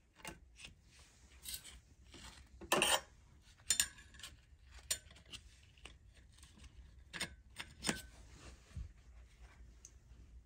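Irregular light metallic clicks and clinks of transmission clutch plates and parts being handled, with a short rattle about three seconds in and a couple of clinks that ring briefly.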